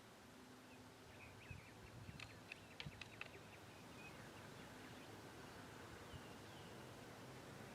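Near silence between rifle shots, with a few faint sharp clicks about two to three seconds in.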